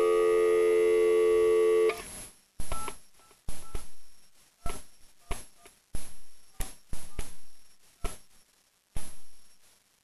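Dial tone from a telephone speakerphone for about two seconds, then a number being dialled on its keypad: about ten separate button presses, each a sharp click with a short touch-tone beep.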